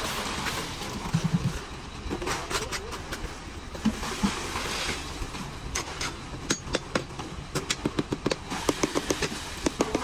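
Wet concrete poured by the bucketful into a beam form, sloshing and sliding out of the bucket in several washes, then a quick run of clicks and knocks, several a second, near the end as the fresh mix is worked with a steel bar.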